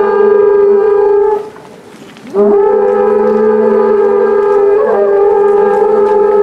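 Conch-shell trumpets (horagai) blown in long held notes. The first note breaks off about a second and a half in, and after a short pause for breath a longer note starts with an upward scoop, wavering briefly in pitch partway through before holding steady.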